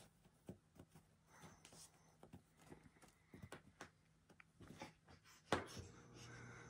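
A cat plays with a wand toy on carpet, making faint scattered rustles and light taps from its paws and the toy's string. About five and a half seconds in comes one sharp thump, the loudest sound, followed by a low steady hum.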